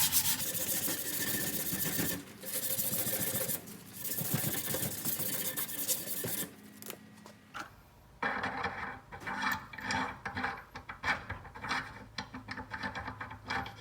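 A metal file scraping over the weld built up on a worn lawn tractor front spindle shaft, dressing it back down. There are longer strokes in the first half, then a pause, then quicker, shorter strokes.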